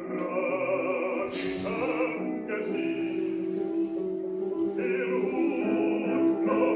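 Classical vocal music: a trained singer holding long notes with vibrato over accompaniment.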